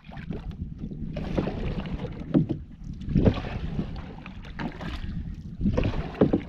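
Canoe paddle strokes in lake water, a swish and splash repeated several times at uneven intervals, over wind rumbling on the microphone.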